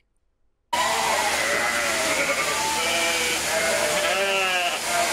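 A flock of merino sheep bleating, many overlapping calls over a steady background noise, starting abruptly about three quarters of a second in after a brief silence.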